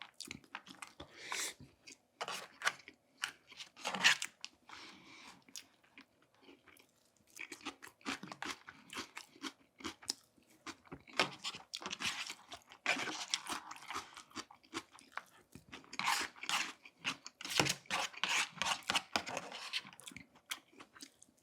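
A person chewing and crunching food close to the microphone, in irregular bites and crackles, with a short lull about five to seven seconds in.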